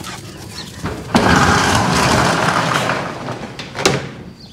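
Corrugated metal roll-up garage door being rolled open, a loud rattle for about two seconds that tapers off, then a sharp clank near the end.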